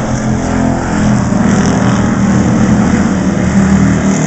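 Engines of several Pure Stock race cars running as they circle a dirt oval, a dense blend of engine notes that grows louder about a second in as the cars come closer.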